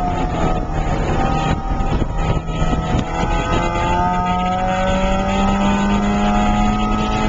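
A Porsche 968's 3.0-litre four-cylinder engine heard from inside the cabin on track. Its note falls early on, then climbs steadily from about three seconds in as the car accelerates.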